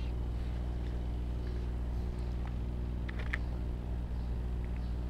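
Steady low electrical hum under the recording, with a few faint computer keyboard clicks about three seconds in as typing begins.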